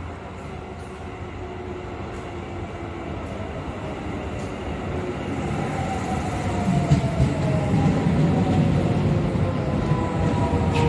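Shin-Keisei 8800 series electric train pulling into a station platform, growing steadily louder as it approaches. Its motors whine in falling pitch as it slows, and a heavy rumble of wheels on rail comes in about two-thirds of the way through as the cars pass close by.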